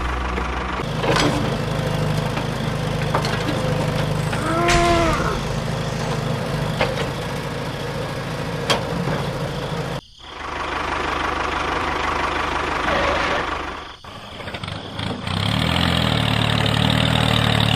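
Engine running steadily with a low hum. It cuts out abruptly about ten seconds in and again about fourteen seconds in, then runs on at a higher pitch near the end.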